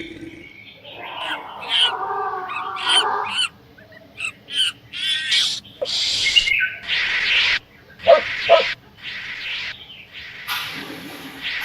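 Birds calling: a series of short chirps, then longer, harsher, noisier calls.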